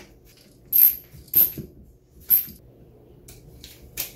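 Short, sharp metallic clicks and rattles from a wall outlet and its wires being handled during wiring: three distinct clicks in the first two and a half seconds, then a couple of fainter ones near the end.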